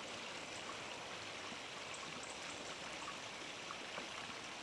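Steady, soft outdoor hiss of riverbank ambience, with a few faint scattered ticks.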